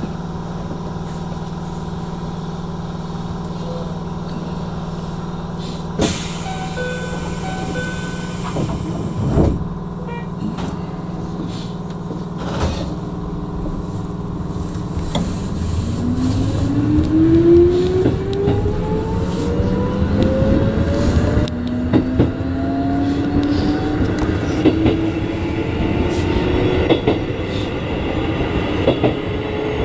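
Keikyu 1500 series electric train standing with a steady hum, then pulling away about halfway through. Its traction motor whine climbs in several tones as it gathers speed, with wheel knocks over the rail joints.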